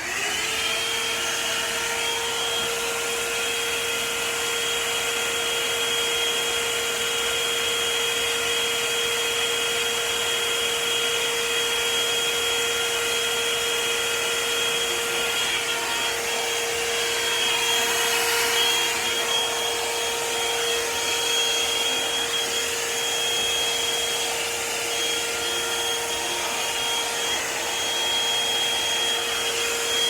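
Revlon One-Step hair dryer brush switched on with a click and running steadily: a motor whine over rushing air, wavering slightly midway.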